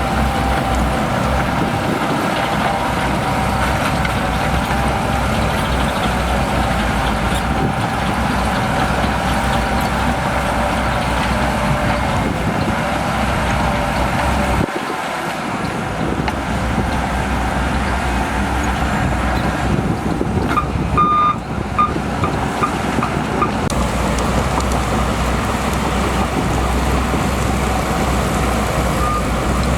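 Diesel engine of a Shantui DH17C2 crawler bulldozer running steadily under work, with a deep rumble that dips briefly about halfway through. About two-thirds of the way in, a reversing alarm gives a quick run of short high beeps.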